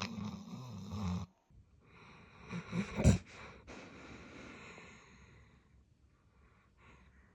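Golden retriever snoring in its sleep: one loud snore that breaks off after about a second, then a longer, noisier breath with a sudden loud peak about three seconds in, trailing off.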